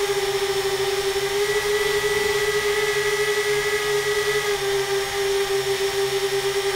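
Tricopter's three electric motors and propellers running in flight, a steady pitched whine that shifts slightly in pitch a couple of times, heard close up from a camera on the airframe.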